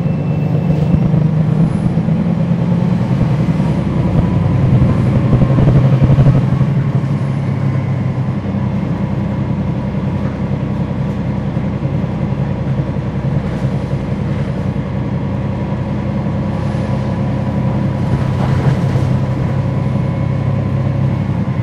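Cummins ISL9 diesel engine of a NABI 40-foot transit bus heard from inside the bus, running under way. It pulls louder up to about six seconds in, then eases off to a steady drone.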